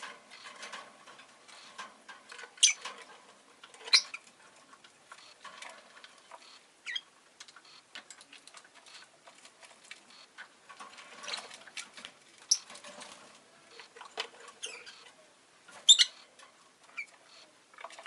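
Rosy-faced lovebird making soft scratchy clicking and rustling sounds, broken four times by a short, sharp high chirp.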